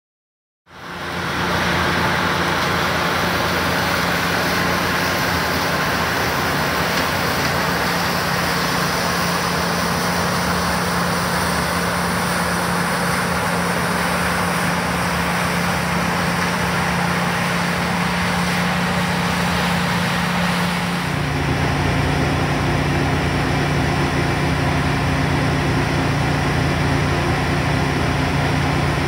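New Holland CX8.85 combine harvester running while threshing barley: a steady diesel and machinery drone with a constant low hum, fading in about a second in. About three quarters of the way through it changes to a different steady drone with a lower hum, with the combine unloading grain through its auger into a trailer.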